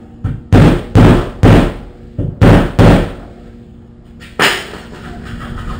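Hammer blows knocking a part of an old refrigerator-turned-kegerator so it sits flush. A quick run of about seven sharp knocks is followed, after a pause, by one more.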